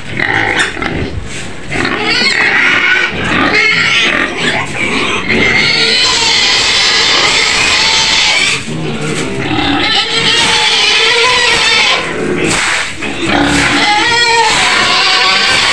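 Young white pigs screaming in their pen: long, loud, shrill squeals one after another, with only brief breaks.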